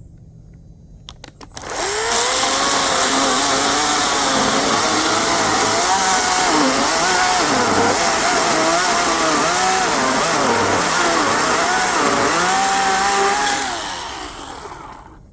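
EGO 16-inch 56-volt cordless electric chainsaw starting up about two seconds in and cutting through a dry piece of wood. Its motor pitch dips and recovers repeatedly as the chain takes the load. It winds down near the end.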